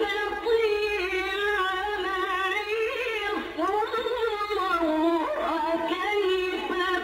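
Background music with a single melody line that bends and glides in pitch.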